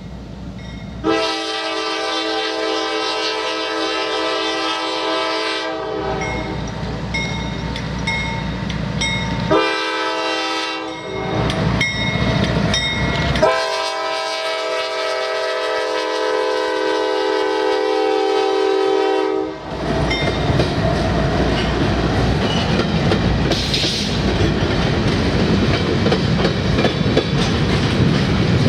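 Air horn of diesel locomotive KCS 4588 sounding for a grade crossing: a long blast, a short one, then another long one. About two-thirds through, the locomotive and its grain hopper cars pass close by, with engine noise and wheels clattering over the rail joints.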